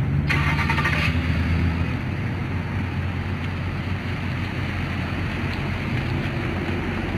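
Steady outdoor background noise with a low hum and wind on the microphone. A short hiss comes about half a second in and lasts under a second.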